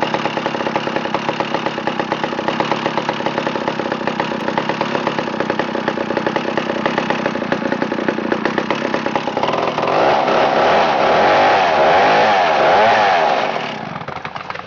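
1959 McCulloch 180 gear-drive chainsaw, a 5.3 cubic inch two-stroke, running with an even beat, then revved higher from about ten seconds in, the pitch wavering up and down, before it falls back near the end.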